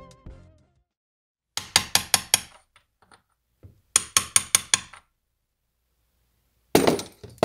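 Hammer striking a socket used as a seal driver, tapping a new seal into its bore in a Suzuki Vinson ATV engine case. Two quick runs of about six light, ringing metal taps, then one or two harder blows near the end.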